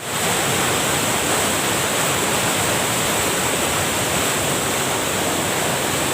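Water rushing steadily over a small weir cascade, running high after heavy rain.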